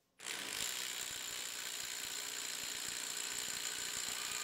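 Metabo HPT WH18DBDL2 18 V triple-hammer impact driver hammering continuously against a torque dyno in a 5-second working-torque test. It starts a moment in and keeps up a fast, even run of impacts over a steady high whine.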